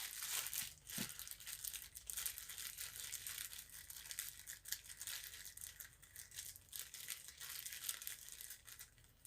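Faint crinkling and rustling of packaging being handled, with scattered small clicks and taps, dying away shortly before the end.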